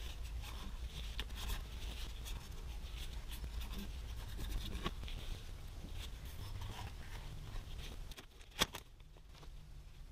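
Quiet handling sounds: rustling and light scraping as a shop towel and a plastic parts bag are handled, with one sharp click near the end.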